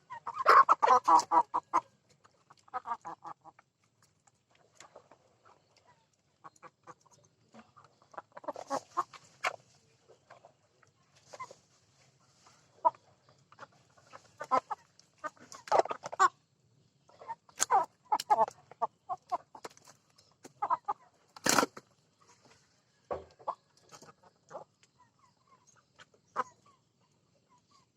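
Chickens clucking in irregular bursts of short calls while being fed, with one sharp click about three-quarters of the way through.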